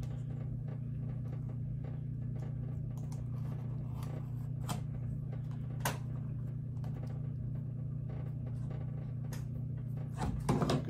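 Steady low hum with a few light, sharp clicks of hand tools being handled as excess leather is trimmed with a razor knife.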